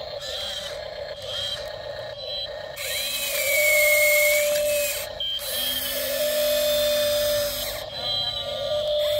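Small electric motors of a radio-controlled model excavator whining steadily, the pitch stepping and gliding up and down as the machine works, loudest a few seconds in.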